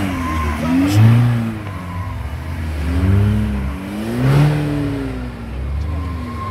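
An off-road 4x4's engine revving up and down repeatedly, its pitch rising and falling every second or so, as it works under load through a steep gully.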